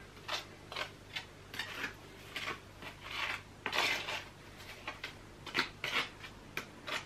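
Small trowel scraping tile adhesive out of a bucket and spreading it onto the back of a clay brick slip: a dozen or so short, irregular scrapes.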